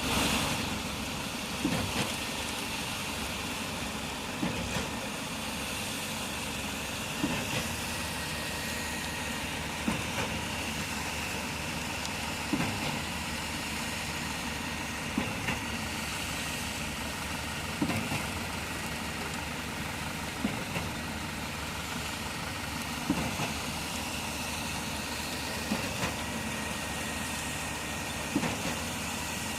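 Concrete boom pump running steadily, with a sharp knock about every two and a half seconds as the pump changes stroke while pushing concrete through the boom line.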